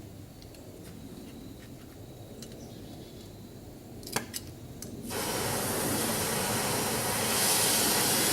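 Two sharp clicks, then a loud steady spraying hiss that starts about five seconds in and keeps going.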